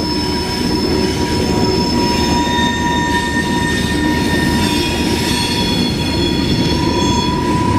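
CSX mixed freight train rolling past, its wheels squealing in several steady high tones over the low rumble of the train as it takes the curve from eastbound to northbound, flange squeal from the turn.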